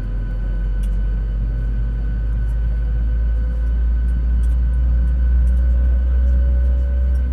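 Airliner cabin ambience: a steady deep rumble with a faint steady hum on top, and a few light clicks.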